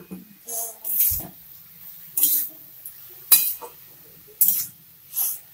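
Spatula scraping and turning cabbage in a metal wok, in a series of short, separate strokes about once a second.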